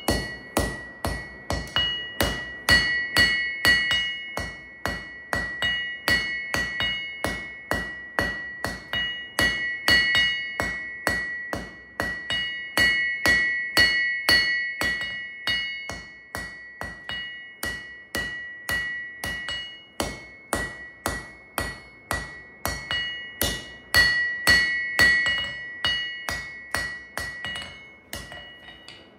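Hand hammer forging a red-hot C70 carbon-steel knife blade on an anvil: a steady run of blows, about three a second, each followed by the anvil's ringing tone. The blows stop just before the end.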